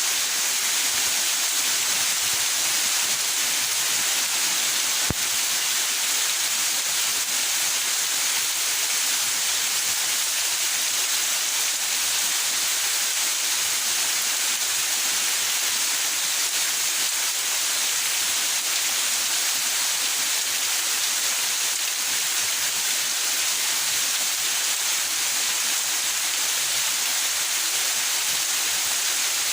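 Steady rain falling, an even hiss with no letting up. One sharp click about five seconds in.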